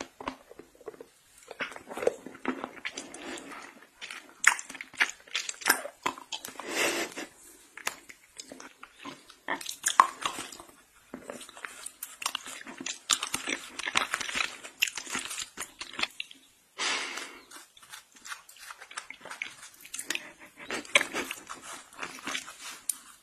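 Close-miked ASMR eating sounds: irregular wet clicks, smacks and slurps of lollipops and candy being licked and sucked, with bursts of crackle. In part a cat licking a squeeze-tube treat.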